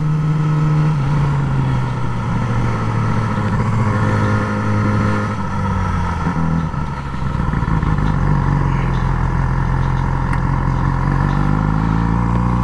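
Motorcycle engine running at low revs through a slow U-turn. The revs sag a little past the middle, then climb again near the end as the throttle opens.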